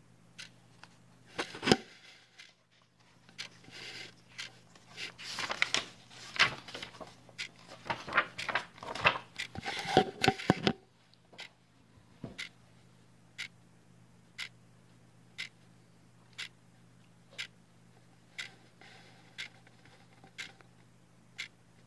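A clock ticking about once a second over a steady low hum. For several seconds in the first half, irregular rustling and clattering handling noises sound over the ticks.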